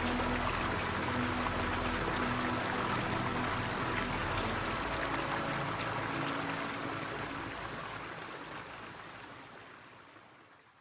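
Ambient soundtrack music ending: held low notes under a steady hiss, fading out gradually from about four seconds in until almost nothing is left at the end.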